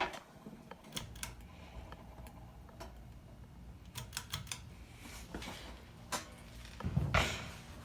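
Hampton Bay Minuet III ceiling fan running on low with a steady low hum, and scattered sharp clicks, a quick cluster of them about four seconds in. A short rush of noise near the end.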